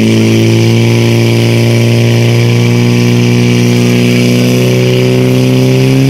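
Portable fire pump engine running at high revs under load, a loud, steady, pitched drone that rises a little near the end, as it drives water through the hose lines to the jets.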